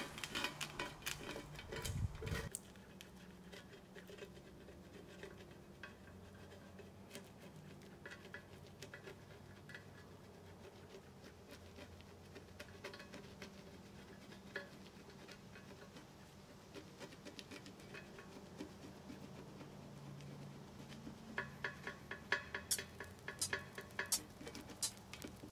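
Faint, scattered ticks and scrapes of a plastic scraper lifting softened aircraft paint-stripper gel off the aluminium lip of a BBS wheel, with a denser run of clicks near the end.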